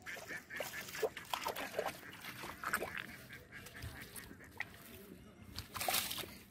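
Muddy water splashing and sloshing in a shallow drain as fish are grabbed at by hand, with short scattered splashes and a louder splash near the end.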